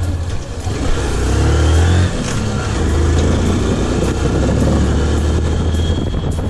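Motorcycle engine running while being ridden. The engine note rises, then drops about two seconds in.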